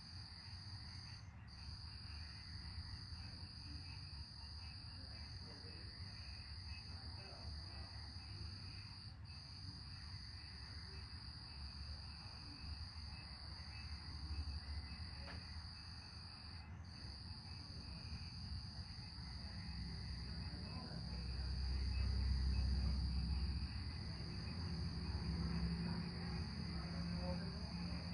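Night insects keep up a steady, high-pitched chorus. About two-thirds of the way through, a low rumble swells up and becomes the loudest sound, then eases off slightly.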